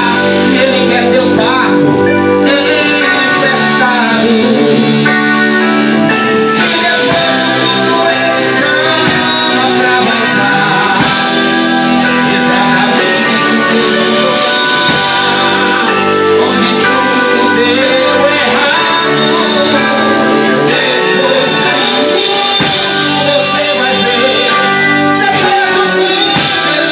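A band playing a song: singing over guitar.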